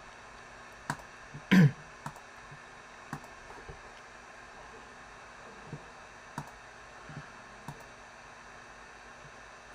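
Scattered light clicks and taps over a steady faint hiss, with one louder knock about a second and a half in.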